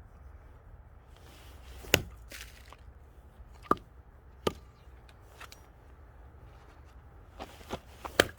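Axe splitting firewood: several sharp chopping strikes into wood, the loudest about two seconds in, and a quick run of three blows near the end.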